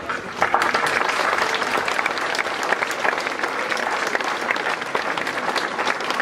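A large crowd applauding: dense, steady clapping that starts about half a second in.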